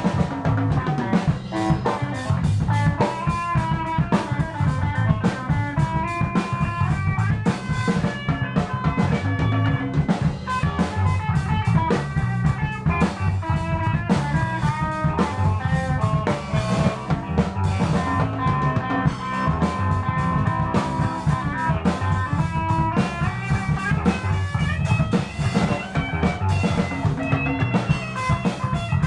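Live rock band jamming: electric guitar playing lines over a steady drum kit beat with bass drum and rimshots, and bass underneath.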